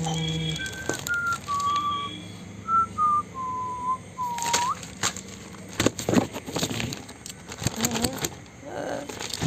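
A person whistling a short tune in clear single notes, stepping down in pitch and ending on a rising slide, for about four seconds. Then newspaper pages rustling and crackling as they are handled and flung about.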